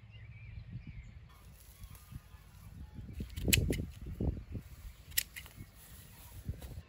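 Tall grass being cleared by hand: rustling and tearing of stems, with two sharp clicks, the first about halfway through and the second under two seconds later.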